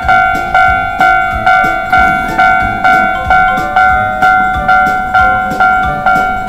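Japanese railroad crossing warning bell ringing steadily about twice a second, with background music under it.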